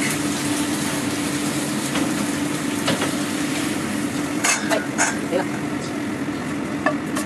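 Vegetables sizzling in a frying pan as they are stir-fried, with the spatula scraping and knocking against the pan several times in the second half. A steady low hum runs underneath.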